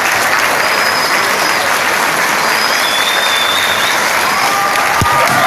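Audience applauding steadily, with a brief dull thump near the end.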